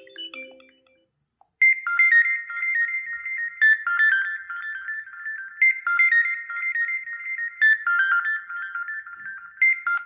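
Xiaomi 11 Ultra ringtone: a quick, high-pitched repeating melody that starts about one and a half seconds in, its phrase coming round about every four seconds. The previous tone's lower melody fades out in the first second.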